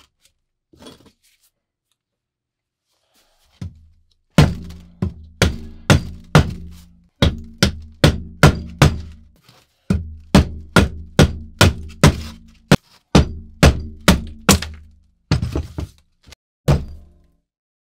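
Restored Boy Scout hatchet chopping into a wooden log: a fast, even run of sharp chopping strokes, about two to three a second, starting about four seconds in, each with a short low ring.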